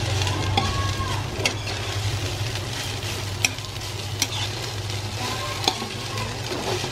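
A metal spatula stirs and scrapes cooked rice in a white-lined frying pan over a steady frying sizzle. The spatula gives several sharp clicks and knocks against the pan, and a low steady hum runs underneath.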